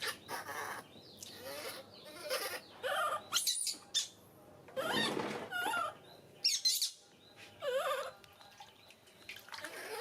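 Baby monkey making a series of short, wavering squeaks and coos, with short hissy rustles in between.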